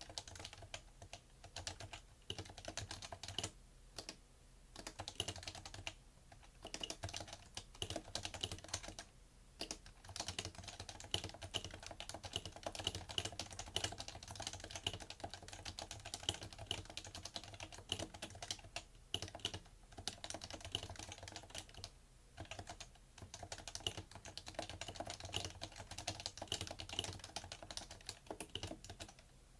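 Continuous typing on a PFU Happy Hacking Keyboard Professional2 with Topre capacitive switches, a rapid run of keystrokes broken by a few short pauses. The keystrokes carry through into the desk beneath.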